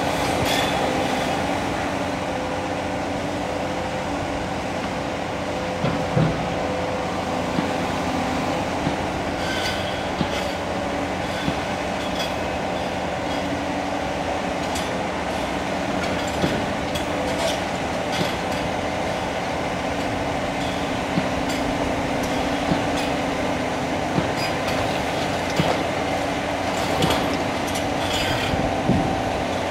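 Cat 336 Next Generation hydraulic excavator running steadily, its engine and hydraulics giving a constant hum. Its demolition attachment crunches into concrete and masonry, with scattered sharp knocks and clatter of breaking debris, thickest near the end.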